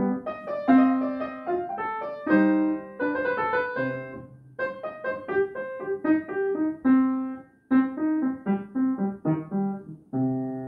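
Upright piano playing a sonata in C minor: a quick stream of separate notes that stops briefly a couple of times.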